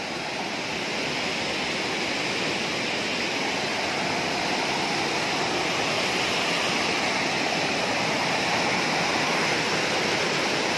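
Small waterfall of fast water cascading and foaming over granite boulders, a steady rushing sound that grows a little louder over the first couple of seconds.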